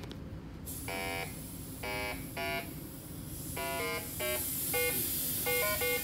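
Electronic refrigerant leak detector beeping as its probe sniffs R-134a trace gas at the joints: single beeps about once a second at first, then from about halfway on, quicker beeps jumping between pitches, the video-game-like tone change that signals refrigerant reaching the sensor at a leak. A hiss of gas escaping from the leak comes in under a second in and grows louder.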